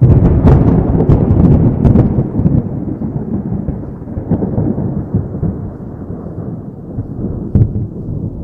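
A close thunderclap: a sudden loud crack with crackling over the first two seconds, then a long deep rumble that slowly fades, with one more sharp crack near the end.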